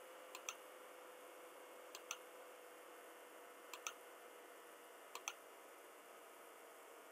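Computer mouse button clicked four times, each click a quick press-and-release pair, spaced about a second and a half apart, over faint steady hiss.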